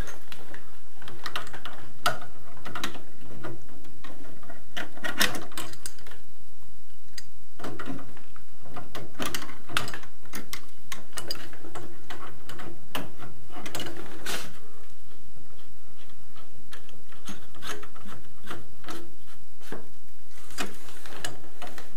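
Irregular clicks, knocks and rubbing in clusters from hands turning and working loose plastic valve fittings and brass threaded connections on the underside of a gas boiler.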